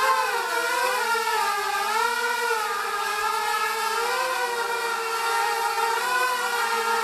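Mini hexacopter's six inverted brushless motors and propellers whining as it hovers and manoeuvres. The overlapping tones waver up and down in pitch with the throttle corrections.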